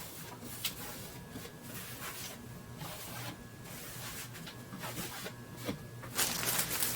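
Cloth wiping down the shelves of a cube storage unit: irregular rubbing strokes with short pauses, growing louder and more continuous near the end.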